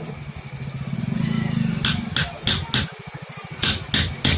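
A low motor rumble for the first couple of seconds, then a run of about eight sharp hammer strikes on wood in two quick groups.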